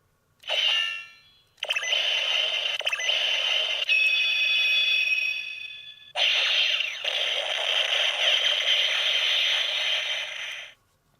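Electronic sound effects from a DaiDaiMaru toy sword, played back altered in speed and direction: a short burst with falling tones, then two long hissing effects of about four seconds each, the first with ringing tones in it.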